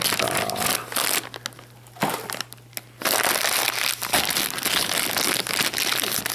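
Black foil blind-box bag crinkling and tearing as hands rip it open, with two short pauses in the first half.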